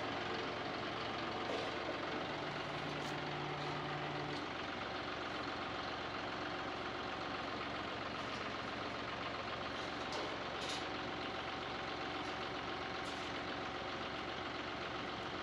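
John Deere utility tractor's diesel engine running steadily at idle, with a few faint clicks.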